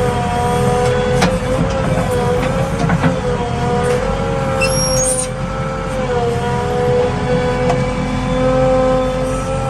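JCB 3DX Xpert backhoe loader running under work, a steady whine that wavers slightly in pitch over the engine's low rumble, with a few short knocks.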